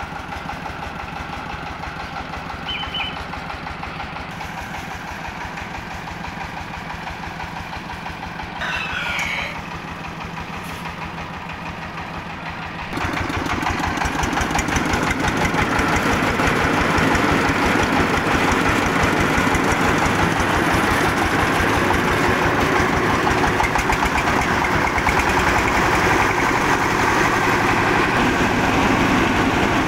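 Diesel engine of a homemade mobile rice-milling vehicle idling with a steady beat. About 13 s in, as a lever beside the engine is pulled, it suddenly gets much louder and runs hard.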